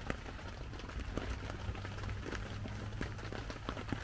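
Rain pattering on a tent: irregular sharp taps of drops, a few a second, over a steady low hum.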